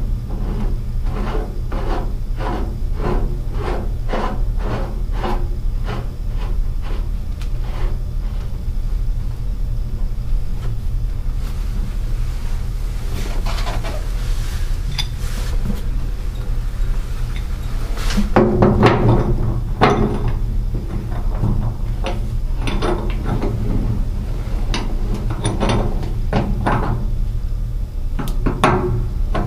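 Metal filter parts being screwed back together by hand: a run of regular clicks, about two a second, for the first several seconds, then a few bursts of clunks and clatter as the galvanized pipe elbow is fitted. A steady low hum runs underneath.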